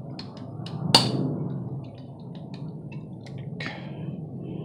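Small metal parts of a Colt Frontier Scout single-action revolver clicking and tapping as they are handled and fitted together, with one sharp knock about a second in and a short scrape near the end.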